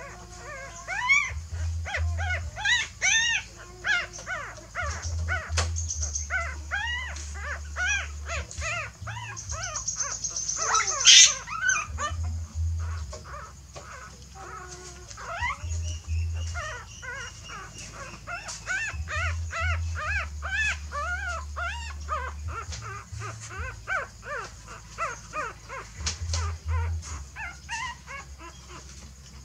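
Newborn puppies whimpering and squeaking in a near-continuous run of short, high cries that rise and fall. One sharp, loud noise comes about eleven seconds in.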